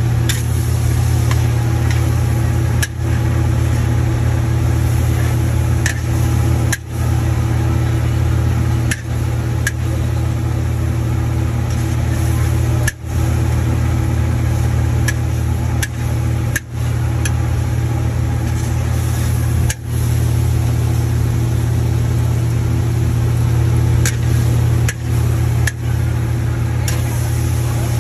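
Loud, steady roar of a gas wok burner under a large wok of frying noodles. Sharp clicks of a metal spatula against the wok come now and then, and the sound briefly drops out every few seconds.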